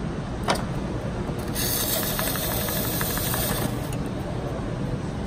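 Core cutter's knife slicing through a cardboard core spinning on the drive chuck, against a plastic platen: a click about half a second in, then a hissing cut lasting about two seconds that stops suddenly, over a steady low rumble.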